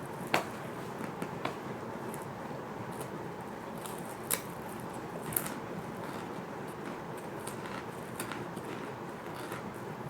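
Crunchy fish crackers being bitten and chewed close to the microphone: a few sharp, separate crunches, the loudest about a third of a second in, over steady background noise.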